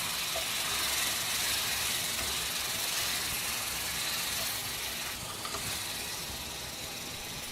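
Eggplant pieces with spice powders sizzling in hot oil in a pan: a steady hiss that slowly gets quieter.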